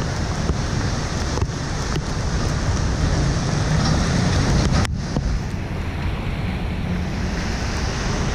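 Wind noise buffeting a helmet-mounted GoPro's microphone on a moving bicycle, a steady low rumbling rush mixed with the hiss of wet road in the rain. The sound dips for an instant about five seconds in.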